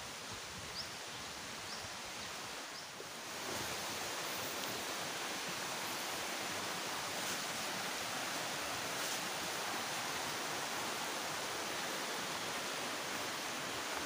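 Shallow rocky stream flowing: a steady rushing hiss that grows louder about three seconds in, then holds even. Three faint high chirps sound in the first three seconds.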